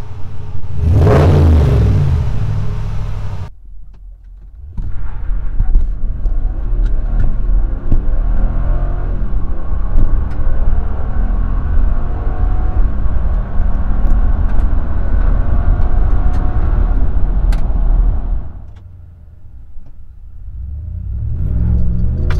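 Ram 1500 Rebel exhaust through a Magnaflow direct-fit muffler, revved once at the tailpipes with a deep rise and fall. After a short break it is heard from inside the cab as the truck accelerates, the engine pitch climbing and shifting through the gears. It drops off briefly near the end, then builds again.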